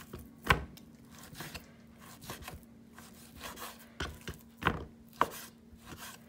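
Kitchen knife slicing half-frozen steak into thin slices on a wooden cutting board, the blade knocking against the board in irregular strokes, loudest about half a second in. A faint steady hum runs underneath.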